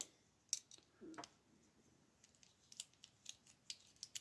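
Faint, scattered light clicks and taps of small metal lock parts and tools being handled, with a short scrape about a second in.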